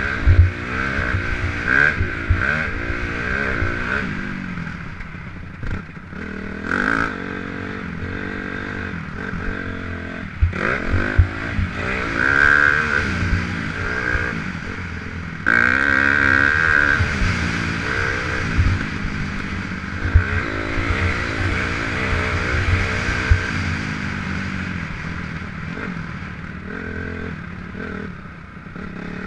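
Engine of an off-road vehicle being driven hard around a dirt track, its pitch rising and falling again and again with the throttle, with occasional knocks and rattles from the rough ground.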